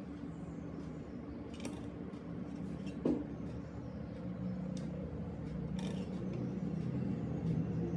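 A steady low hum with a few sharp light clicks and taps scattered over it.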